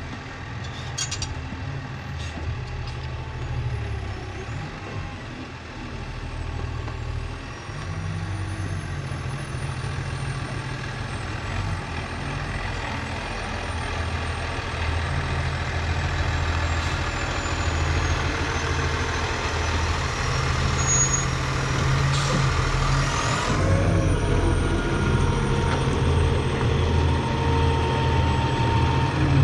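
Diesel engine of heavy hay-loading machinery running and working, its revs rising and falling and getting louder through the second half, with a brief rising whine near the end.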